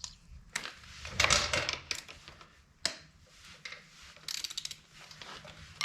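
Metal hand tools clicking and clanking against each other and the motorcycle in irregular bursts, with a few sharp knocks. The loudest cluster comes about a second and a half in.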